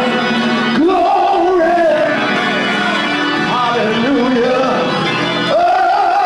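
Church music: a man singing over steady sustained instrumental chords.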